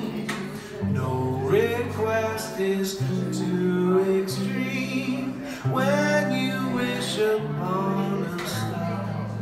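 Live solo performance: a man singing and playing an acoustic guitar through a small PA, in long held sung phrases over steady chords.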